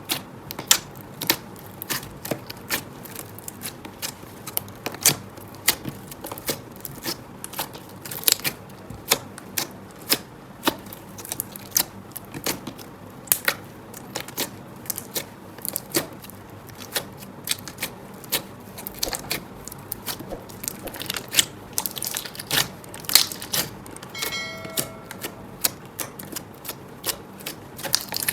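Glossy slime being squeezed and poked by hand, giving a continuous run of sharp, irregular sticky clicks and pops, several a second.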